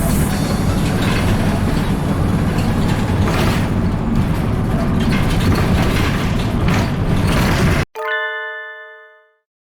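Steady engine and road rumble of a route bus heard from on board, cutting off abruptly near the end. It is followed by a single bell-like chime that rings and fades over about a second and a half.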